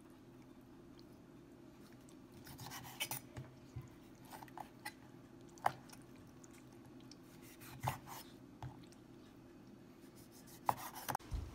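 Wet raw geoduck meat being handled and scraped on a wooden cutting board, heard as a scatter of short, soft scrapes and squishes, then a few sharp knocks of a cleaver on the board near the end. A steady low hum runs underneath.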